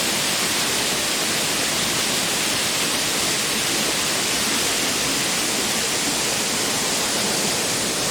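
A small waterfall, a steady even rush of falling water.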